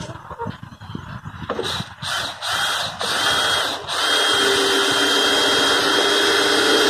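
Cordless drill driving a screw into a wooden coop frame. It runs in three short bursts, then holds on steadily for about three seconds with a high whine.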